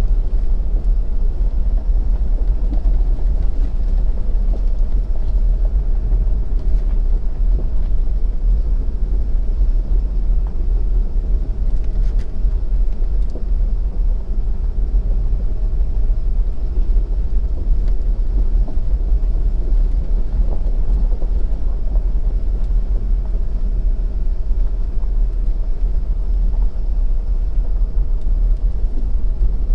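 2017 Ford F-250's 6.7-litre Power Stroke V8 turbo-diesel driving the truck along a dirt track, heard from inside the cab as a steady low rumble mixed with tyre noise.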